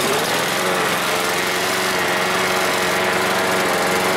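Honda engine of a Poulan Pro walk-behind gas lawn mower running steadily, just started on the first pull. Its pitch settles within the first half second.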